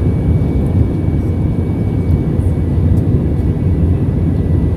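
Jet airliner cabin noise heard from a window seat beside the wing: a loud, steady low rumble of the turbofan engines and airflow, with a faint thin high whine above it.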